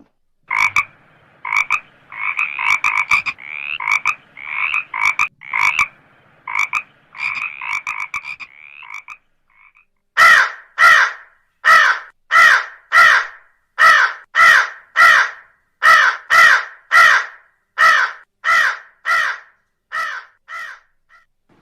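Frogs croaking: a run of quick, closely packed croaks, then after a short break about ten seconds in, slower, evenly spaced croaks about one a second.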